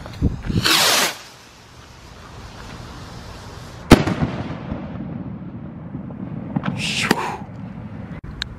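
Firework rocket whooshing up for about a second, then one sharp bang as it bursts about three seconds later. A short hiss follows a few seconds after the bang.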